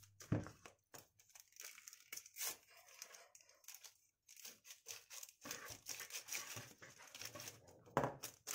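Paper sachets of baking powder and vanilla sugar powder being handled, torn and crinkled, with an irregular crackling rustle, while a wire whisk moves in a plastic bowl of flour.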